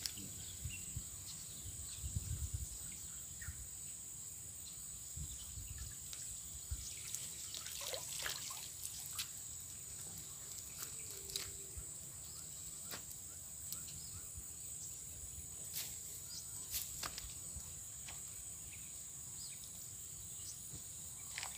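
A collapsible umbrella trap (bubu payung) being hauled out of a creek by its rope and set down on the bank, with water dripping off it and scattered rustles and knocks, over a steady high insect drone.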